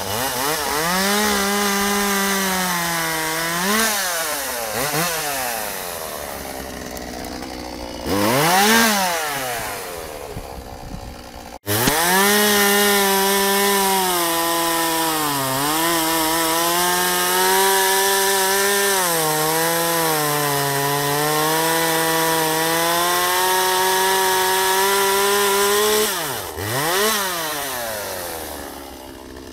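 Ryobi two-stroke gas chainsaw cutting through pine logs at full throttle, its pitch sagging and recovering as the chain bites into the wood. A quick rev up and down comes about eight seconds in, the sound breaks off suddenly near twelve seconds and comes straight back under load, and near the end the throttle is released and the engine drops toward idle.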